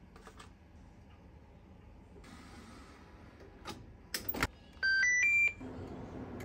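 Fish grill drawer of a Hitachi IH cooktop pushed shut with a couple of sharp knocks, then the control panel beeps in a quick run of tones stepping up in pitch as the grill is switched on, followed by a steady low hum.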